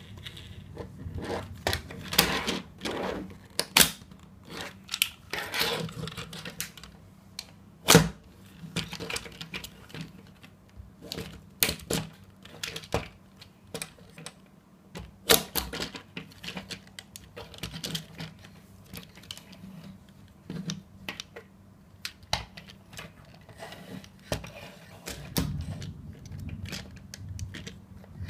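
Hard plastic parts of a Transformers Bumblebee toy figure being worked by hand: an irregular run of small clicks and snaps as panels swing and lock into place, with a few sharper, louder snaps, the strongest about eight seconds in and another about fifteen seconds in.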